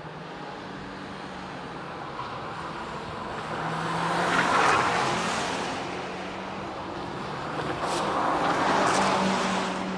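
Mitsubishi Lancer Evolution VI Tommi Mäkinen Edition with a misfiring (anti-lag) system, its turbocharged four-cylinder running at the circuit and swelling loud twice, about four to five seconds in and again near the end, as it passes. Two short sharp cracks come near the end.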